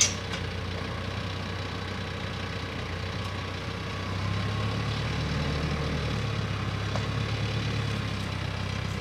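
Compact tractor's diesel engine running steadily while driving a three-point post hole auger, getting a little louder about four seconds in. There is a short sharp click at the very start.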